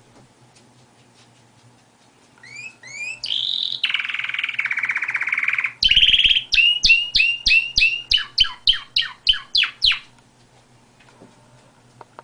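Domestic canary singing one long song phrase that starts about two seconds in: a few rising chirps, a fast buzzing trill, then a run of repeated downward-sweeping notes, about three a second. It stops shortly before the end.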